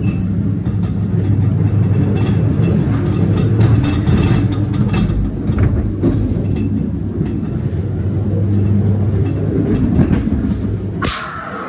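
Ghost train ride car running along its track: a steady low rumble with rattling and clatter from the wheels. Near the end a sudden loud burst of noise cuts in, and the rumble drops away.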